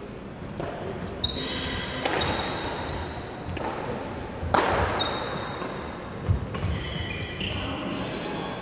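Badminton rally in an echoing sports hall: sharp racket strikes on the shuttlecock, the hardest about halfway through, with shoes squeaking on the wooden court and footfalls between shots.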